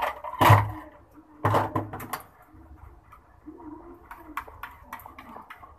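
Two loud knocks as a plastic bowl is handled and set down, then a spoon clicking and scraping against a bowl while a thick yogurt and green chutney mixture is stirred.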